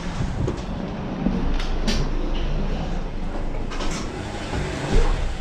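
A few sharp clicks and knocks as glass shop entrance doors are pushed open and walked through, over a steady low rumble.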